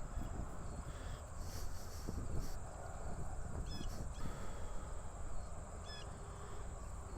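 Wind rumbling on the microphone, with a few faint short bird chirps.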